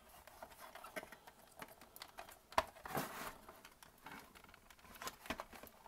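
Faint small clicks and taps of plastic and metal as a CD drive's circuit board is worked loose from its clipped-in plastic housing by hand, with one sharper click about two and a half seconds in.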